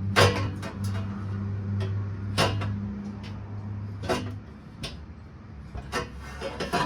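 Stainless steel long-tube exhaust headers clanking and knocking against metal as they are worked up into a tight engine bay, in several separate knocks. A steady low hum runs underneath and stops about four seconds in.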